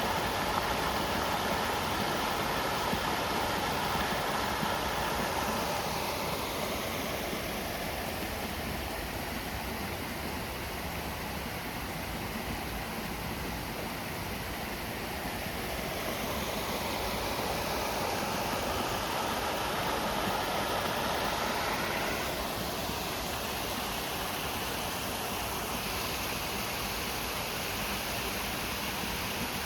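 River water rushing steadily over the riverbed, an even hiss that swells and eases slowly.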